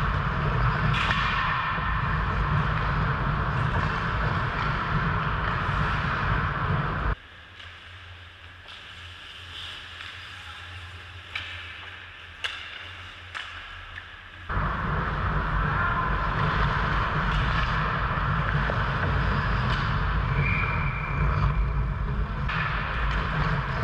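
Ice-rink game noise picked up by a helmet-mounted GoPro: a steady, loud rumble and hiss. It cuts off abruptly for about seven seconds in the middle, and a few sharp clacks are heard in that quieter stretch before the noise returns just as suddenly.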